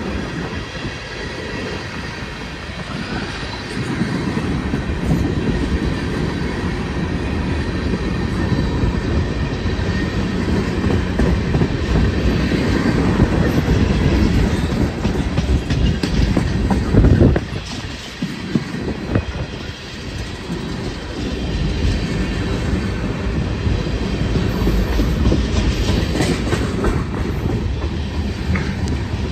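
Freight train cars, mostly tank cars, rolling past close by: a steady rumble of steel wheels with clacking over the rail joints. It builds about four seconds in, is loudest just past the middle, drops suddenly for a few seconds, then builds again.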